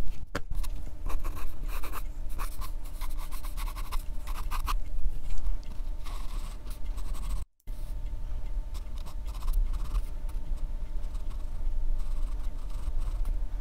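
Pencil scratching across paper in quick, repeated sketching strokes. It breaks off to silence for a moment about seven and a half seconds in, over a low steady hum.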